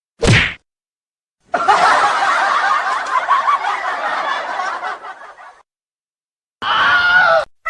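Laugh-track sound effect: a group of people laughing for about four seconds, fading out, after a short sharp sound right at the start. A brief pitched effect follows near the end.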